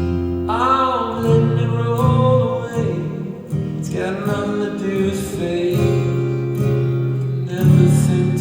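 Live indie-rock performance: a male voice singing over plucked strings and steady bass notes.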